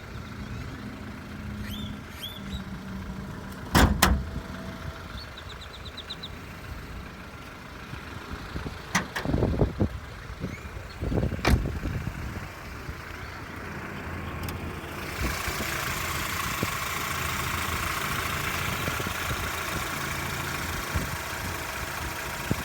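BMW 328i engine idling with a steady low hum, which the owner presents as a bad engine sound. Loud knocks come about 4 s in, then again around 9–10 s and 11–12 s. From about 15 s on, a steady hiss joins the idle.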